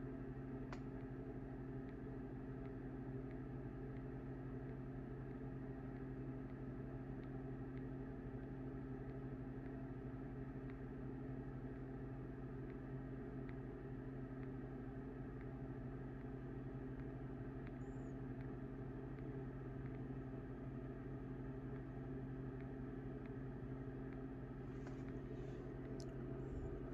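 Steady low hum of a running machine, with a few faint clicks near the end.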